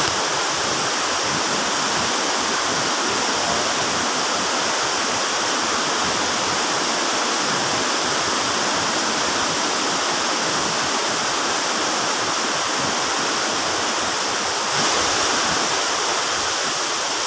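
Waterfall cascade: a steady rush of falling water.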